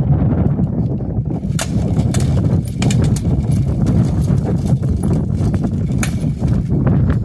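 Wind buffeting the microphone in a steady low rumble, broken by a few sharp clanks of blunted steel weapons striking plate armour and shield, the clearest about a second and a half in and about six seconds in.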